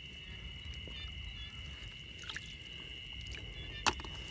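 Shallow ditch water splashing lightly and dripping as a hand works through it, over a steady high tone in the background. A single sharp click comes near the end.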